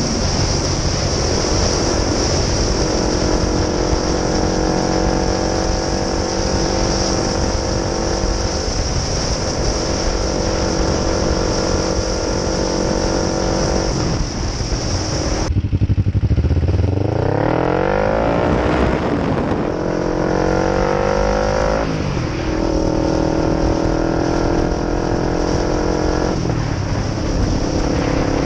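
Sport motorcycle engine heard from the rider's seat, running at steady cruising revs under a steady high hiss. About halfway through, the hiss stops and the revs climb twice as the bike accelerates through the gears, then settle into steady cruising again.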